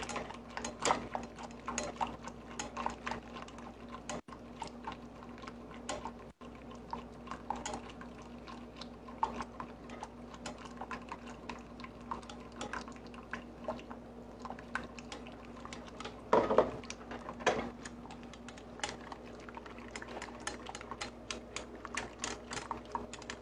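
Whisk clicking and scraping against the inside of a metal saucepan in quick, irregular taps as egg yolks are stirred into hot milk for a custard filling. A low steady hum runs underneath, and there is a brief louder sound about two-thirds of the way through.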